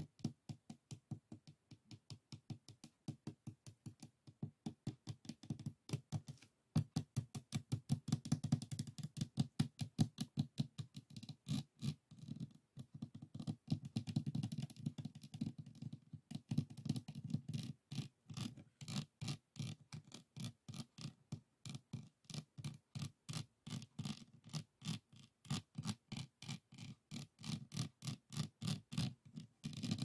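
Fingertips and nails tapping and scratching rapidly over the small faceted beads of a finished diamond painting, making a quick, continuous stream of light clicks.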